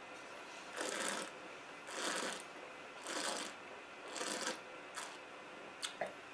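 A wine taster drawing air through a mouthful of red wine in four short, breathy slurps about a second apart, aerating it on the palate, with a faint click or two near the end.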